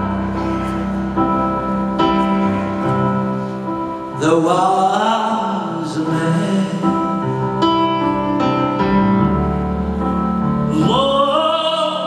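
Live band playing a slow ballad on sustained keyboard chords. A man's lead vocal comes in about four seconds in and again near the end.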